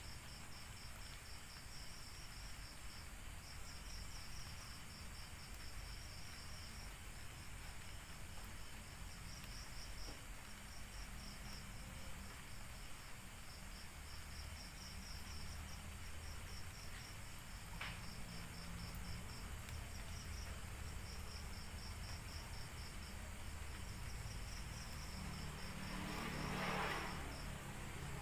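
Night insects chirping: a high, rapidly pulsing trill in runs of a few seconds with short breaks, over a steady low hum and hiss. A short, louder rustling noise comes near the end.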